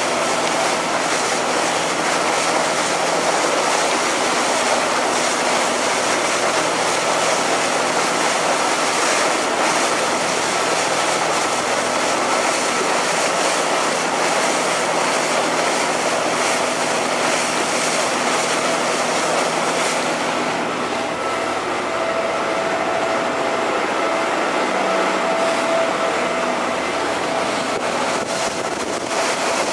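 Passenger ferry under way: a loud, even rush of water and wind over the boat's steadily running engine, with a steady whine on top.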